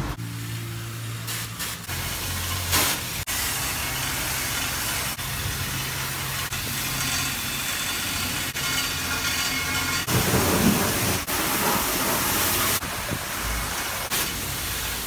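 High-pressure car wash spray wand blasting water, a steady loud hiss over the low hum of the wash pump, changing abruptly several times.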